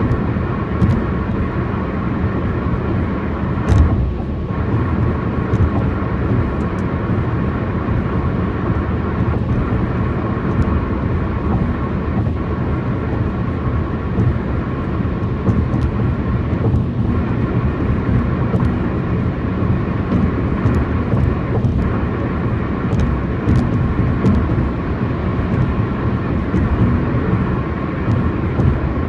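Tyre roar from rough 1986 concrete highway pavement, heard inside a moving car: a loud, steady roar, heaviest in the low end, with a faint steady whine and a few short thumps from bumps in the road.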